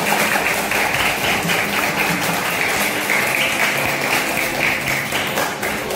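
A classroom of young children and their teacher clapping, a dense round of applause that thins out near the end.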